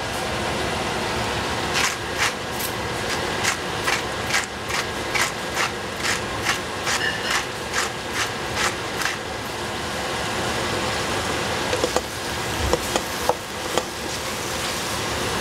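A kitchen utensil knocking and scraping against cookware, a run of sharp knocks at about two to three a second for several seconds, then a few scattered knocks, over a steady hiss.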